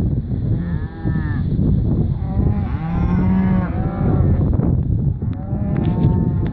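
Cattle mooing: three long calls one after another, each rising and falling in pitch, over a steady low rumble.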